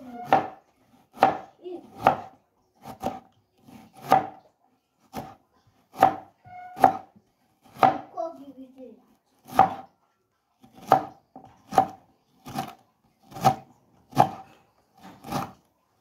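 Kitchen knife slicing a red onion on a plastic cutting board, the blade knocking the board about once a second in short, sharp strokes.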